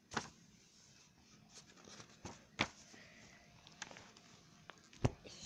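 A few scattered soft knocks and rustles of handling, a second or two apart, with a sharper thump near the end.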